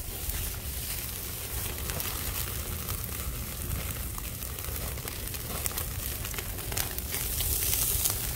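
Rice-straw fire burning hard under a wire grill of pork belly: a steady rush of flames with scattered crackles and sizzling, growing a little louder near the end.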